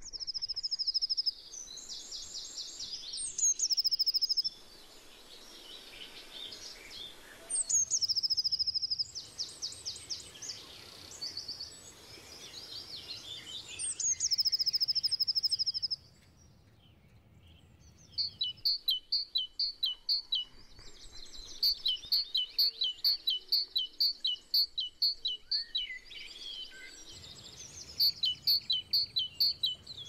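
Several songbirds singing: short, high, fast trills and chirps come and go in the first half. From a little past halfway, a long run of evenly repeated down-slurred notes follows, about two or three a second.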